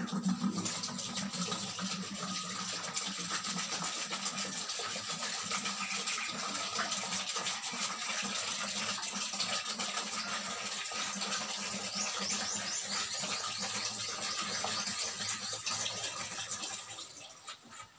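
Water poured in a steady stream from a plastic jug into a bucket drinker. The pouring stops about a second before the end.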